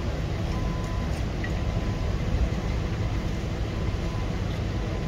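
New cog-railway locomotive running, a steady low rumble with a faint steady high whine above it.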